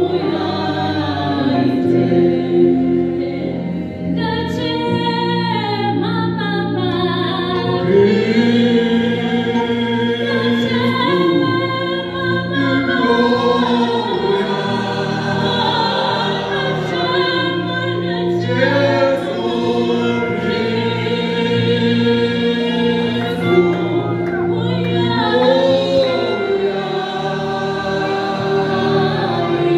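A small choir singing a gospel song, several voices together, the leads amplified through handheld microphones.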